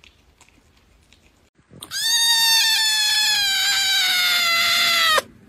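A white kitten giving one long, loud meow that starts about two seconds in and slowly falls in pitch, ending just before the close. Before it, faint crunching of a cat chewing a corn cob.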